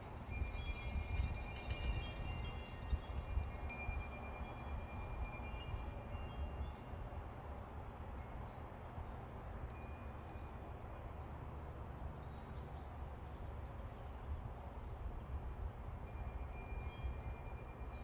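Two metal tube wind chimes ringing in the breeze, a cluster of overlapping notes over the first several seconds, then thinning out, with more strikes near the end. Small birds chirp here and there in the background.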